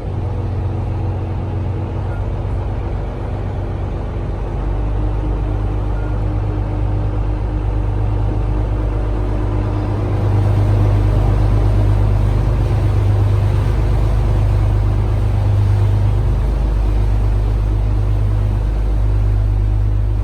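Canal tour boat's motor running steadily underway, a low hum with a steady tone, getting louder about ten seconds in.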